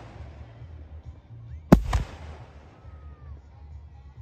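Aerial fireworks shell bursting: one sharp, loud bang a little under two seconds in, a weaker second bang about a quarter second later, then a rumble that fades away.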